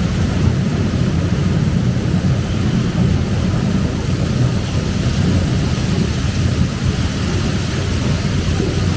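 Farm machinery running steadily while loading onions, a continuous low rumble with an even noisy hiss above it.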